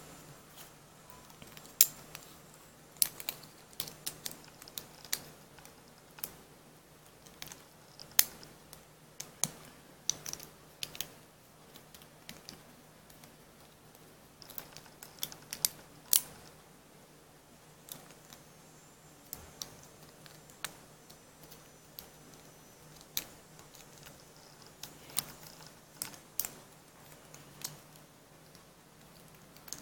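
Irregular small clicks and taps as the parts of a Storm Capricorn Beyblade (face bolt, energy ring, metal Storm wheel, track and tip) are handled and fitted together.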